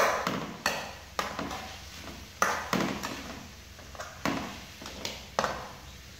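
A metal ladle scraping and knocking against a steel wok as vegetables are stirred. About eight sharp strokes at an uneven pace, each ringing briefly.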